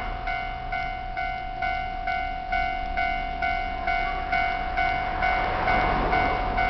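A Japanese level-crossing warning bell clanging steadily, about two strokes a second. Under it a train runs over the crossing, its noise swelling about five and a half seconds in.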